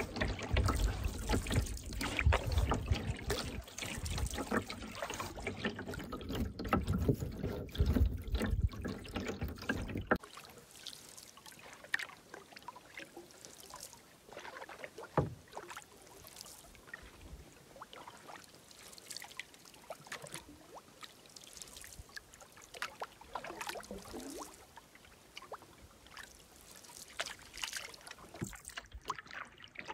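Canoe paddling: paddle strokes in the lake water, with drips and trickles off the blade. A heavy low rumble for about the first ten seconds stops abruptly, and the strokes and drips go on more quietly.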